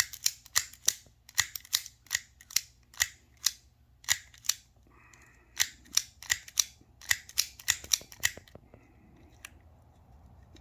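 Old headlight switch from a 1978 Corvette, its knob worked in and out by hand: a run of sharp clicks, two or three a second, as the switch catches the knob. The clicks stop about eight and a half seconds in.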